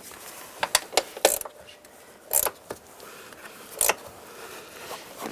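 Hand ratchet and socket clicking in short bursts as it is swung back and forth, tightening a door hinge bolt.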